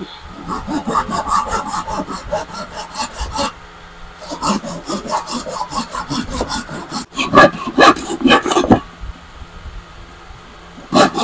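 Handsaw cutting across a wooden batten: quick back-and-forth strokes in two runs of a few seconds with a short break between, then a pause of about two seconds near the end before the strokes start again.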